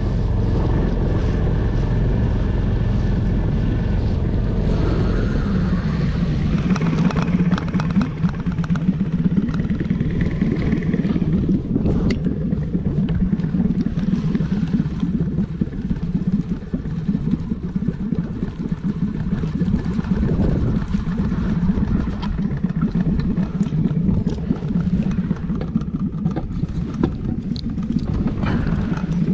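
Small boat's outboard motor running steadily at trolling speed: an even low drone.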